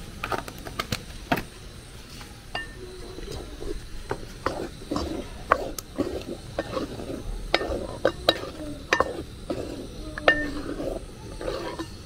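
Wooden spoon stirring a pot of ewedu (jute-leaf soup) with okra, knocking and scraping against the aluminium pot's sides in irregular clicks. In the first second or so a plastic seasoning container's lid clicks open.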